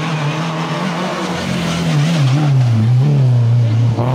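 Renault Clio II rally car's four-cylinder engine at full attack as it takes a bend and passes close by, its note dipping and climbing with throttle and gear changes and getting louder towards the end.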